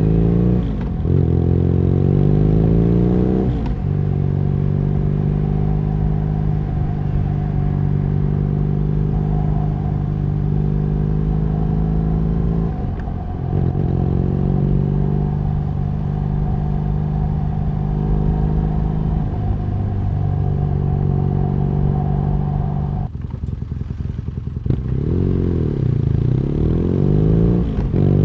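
BMW R nineT's boxer twin engine under way, heard from the rider's seat. It revs up through the gears in the first few seconds, then holds a steady cruise broken by a brief gear-change dip about halfway. Late on it eases off for about two seconds, then revs up again near the end.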